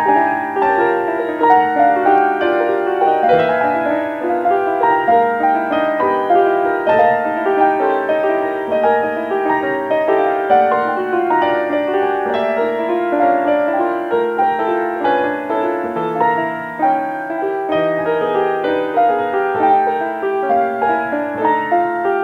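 Piano music: a steady flow of separate notes over sustained lower notes, with no voice.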